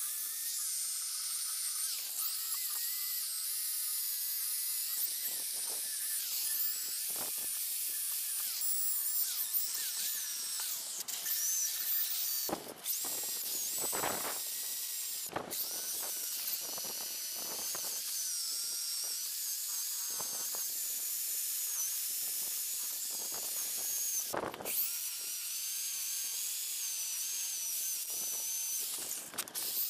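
Bosch electric drill running a wire wheel against a steel G-clamp, scratching off rust and old paint down to bare metal. A steady high motor whine whose pitch wavers as the wheel is pressed and eased on the metal.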